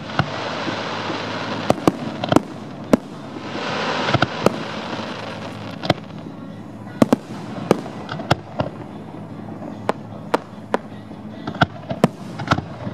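Aerial fireworks shells bursting: a string of sharp bangs at irregular intervals, a few close together. Through the first half there are two stretches of loud hiss, each a couple of seconds long.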